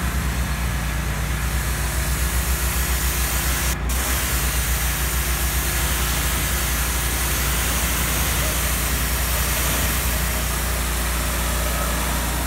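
Pressure-washer jet hissing as it sprays the soap-covered body of a pickup, over an engine running steadily with a fast low pulse.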